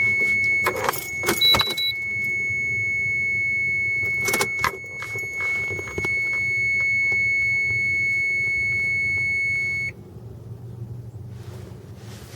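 A steady, high-pitched electronic warning tone sounding continuously, with a brief higher beep about a second and a half in, then cutting off suddenly near the end. Keys and handling rattle and click over it early on and again about four seconds in.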